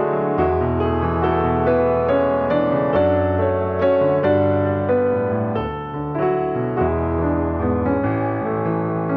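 Background piano music: a slow, gentle melody over held bass notes.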